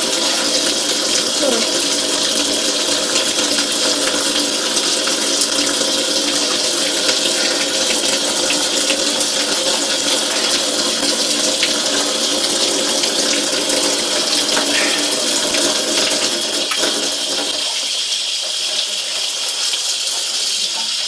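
Tap water running steadily into a stainless steel sink and splashing over a plucked chicken being rinsed under it. The splashing gets thinner near the end.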